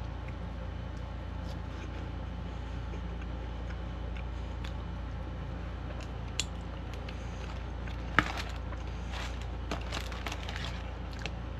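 Close-up chewing of fries dipped in nacho cheese: wet mouth clicks and smacks, a sharp one about six seconds in and a cluster from about eight to eleven seconds, over a steady low hum.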